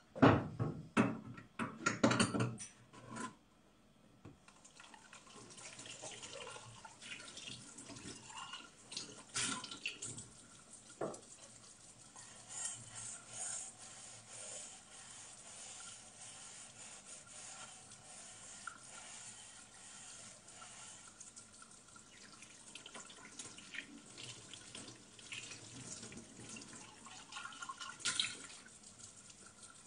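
Hand-washing dishes at a kitchen sink: a few loud clatters of crockery and cutlery at the start, then a tap running steadily with scattered clinks of dishes and glasses being rinsed.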